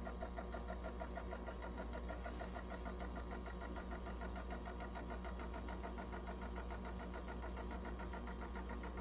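Cassette deck of a Lasonic TRC-920 boombox running with no music coming through: a low hum with a steady, fast, even ticking from the tape mechanism.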